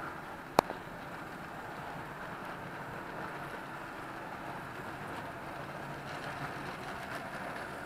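Model train of BOC tank wagons running along the layout's track, a steady rolling noise of the wheels and motor, with one sharp click about half a second in.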